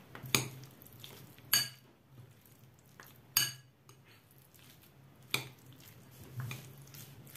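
A metal utensil stirring salad in a glass bowl, clinking sharply against the glass four times, with a few fainter taps near the end.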